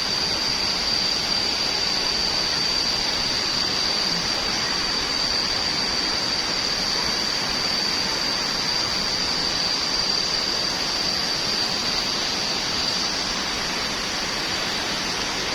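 Temam waterfall's falling water: a steady, unbroken rushing noise, with a thin steady high-pitched tone running over it.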